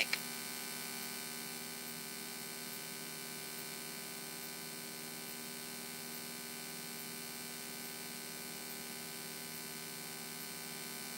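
Cessna 172N's four-cylinder Lycoming engine running steadily at climb power, heard as a muffled, even drone with several steady tones through the cockpit intercom.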